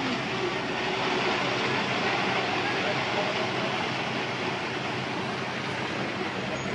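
Landslide of loose flagstone rock and debris sliding down a collapsed hillside, heard as a steady rushing noise.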